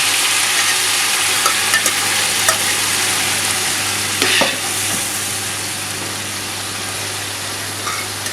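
Tomato gravy sizzling in a pan of hot desi ghee and fried onions, with a spoon knocking and scraping against the pan a few times as it is stirred; the sizzle eases a little over the seconds.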